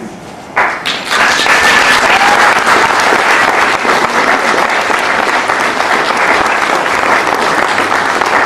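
Theatre audience applauding at a curtain call. The clapping starts suddenly about half a second in and then carries on, loud and steady.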